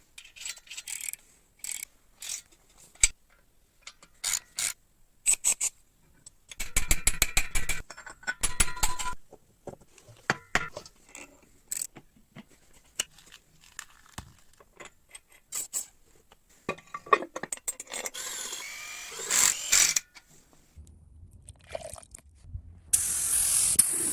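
Workshop restoration sounds: hand tools clinking, knocking and scraping on metal motorcycle parts, with a short rattling run partway through. Near the end a steady spray hiss starts.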